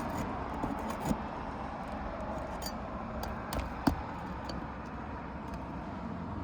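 A few light, sharp metal clicks and taps over a steady outdoor background hum. They fit hand work on asphalt shingles, such as a shingle ripper working roofing nails loose.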